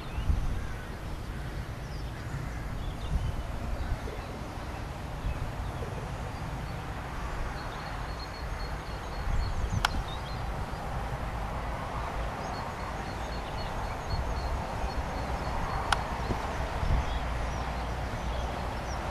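Outdoor field ambience with wind buffeting the microphone as a steady low rumble. Faint high, evenly spaced pips come in two stretches, and there are two sharp clicks.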